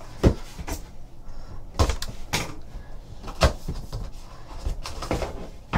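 Cardboard trading-card box being handled and opened: about half a dozen sharp taps and knocks of the box and its lid against the table and hands, spaced irregularly.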